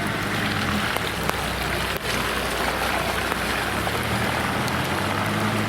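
Steady hiss of falling rain with scattered drop ticks, over the low, even hum of a vehicle engine running.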